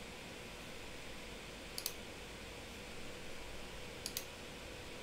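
Two computer mouse clicks, each a quick double tick, one a little under two seconds in and one about four seconds in, over a steady faint hiss.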